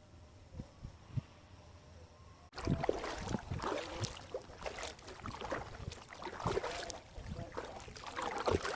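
Paddling a homemade styrofoam kayak: irregular splashes of the paddle in the water and knocks against the hull. Two soft thumps come first, then from about two and a half seconds in a quick run of louder strokes.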